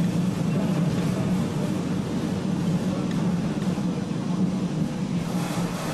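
Ex-Melbourne W2-class streetcar running along its track with a steady low rumble, getting quieter near the end.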